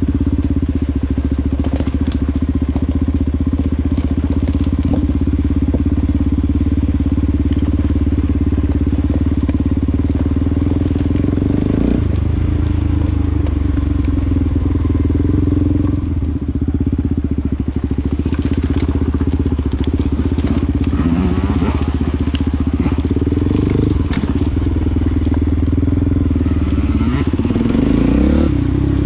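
Off-road vehicle engine running steadily while riding, with a few short rises in revs about two-thirds of the way in and again near the end, over scattered knocks and crunches from the rough ground.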